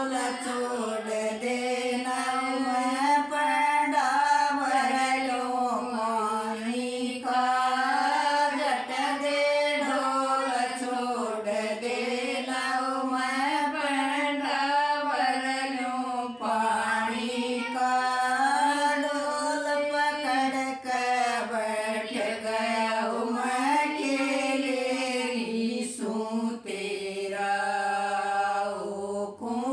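Women singing a Haryanvi jakdi folk song together, unaccompanied, in long drawn-out wavering notes; near the end they hold one steady note.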